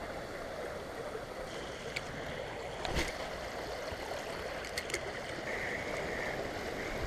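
Creek water running steadily over a shallow riffle. A few light clicks stand out over it, the loudest a short knock about three seconds in.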